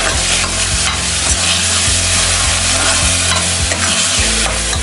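Vegetables and sauces sizzling in hot oil in a stainless steel wok (kadhai), stirred with a steel ladle that scrapes and knocks against the pan two or three times a second.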